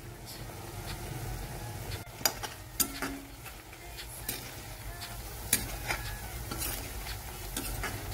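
Sliced button mushrooms sizzling in oil in a metal pan while a metal spoon stirs them, clinking and scraping against the pan several times from about two seconds in.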